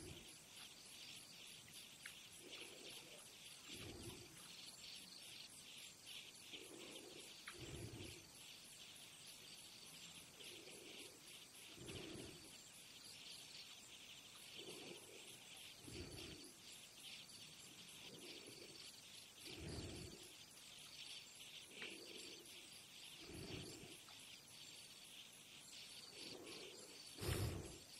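Faint, steady chorus of insects trilling rapidly in a high register. A soft low sound recurs every two seconds or so, and a louder one comes near the end.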